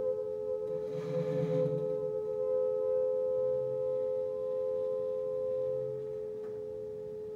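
Saxophones in a free improvisation holding two long notes very close together in pitch, making a steady, ringing drone. A brief breathy rush swells up about a second in, and a faint low note comes and goes beneath.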